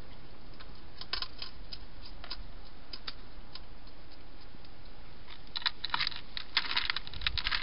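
Wild hedgehog crunching dry food pellets from a bowl: a few scattered crisp clicks at first, then a dense, irregular run of crunches from about five seconds in, over a steady hiss.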